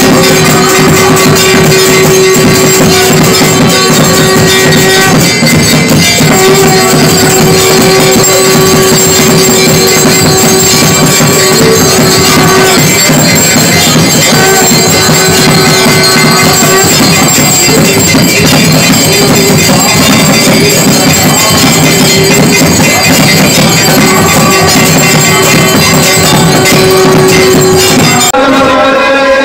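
Temple aarti music: brass handbells and percussion clanging without pause, under a long held note that sounds again every few seconds. The ringing cuts off abruptly about a second before the end.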